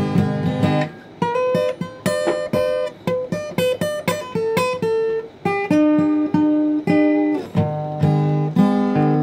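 Acoustic guitar playing a blues intro: strummed chords, then a run of single picked notes through the middle, then full chords again near the end.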